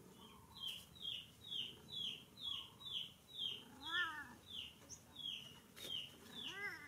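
A bird calls in a steady series of short, high, falling chirps, about two a second. A cat gives a short meow about four seconds in and another near the end.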